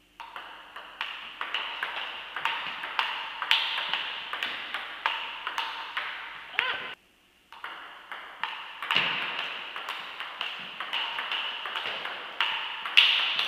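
Table tennis rally: the ball clicking off the bats and the table in a quick, steady rhythm of about two hits a second, with a brief gap a little past halfway.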